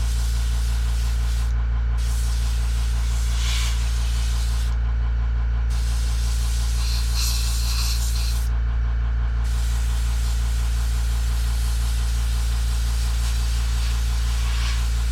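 An airbrush spraying paint with a steady hiss that cuts out briefly three times as the trigger is let off. Under it, the low steady hum of a Makita MAC100Q Quiet Series air compressor running.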